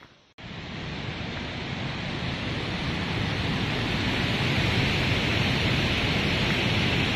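Waterfall rushing: a steady, even wash of water noise that comes in suddenly just under half a second in and grows gradually louder.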